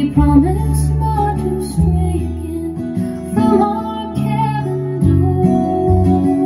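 A folk ballad's acoustic-guitar passage with deep, sustained bass notes, played back through JBL 4344 studio monitor loudspeakers.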